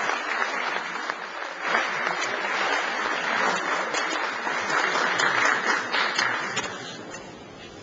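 Audience applauding: a steady wash of many hands clapping that dies away near the end.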